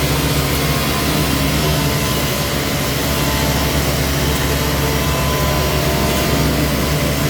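Concrete pouring machinery running steadily during a slab pour: a loud, unbroken engine hum with steady tones above it.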